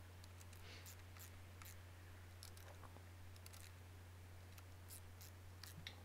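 Faint, irregular clicks of a hand ratchet turning a brake caliper mounting bolt on a motorcycle fork leg, over a steady low hum.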